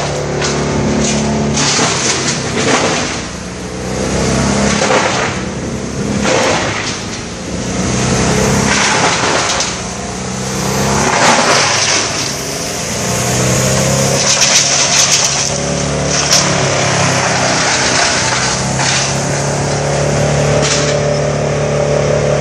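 An engine running steadily under loud rushing noise that swells and fades every few seconds.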